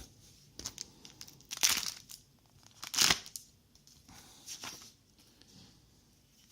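Trading-card booster pack wrapper being torn open and crinkled by hand, in a few short rustling bursts, the loudest about two and three seconds in.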